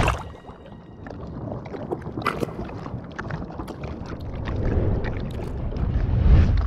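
Low rumbling ambience with scattered small clicks, growing louder toward the end.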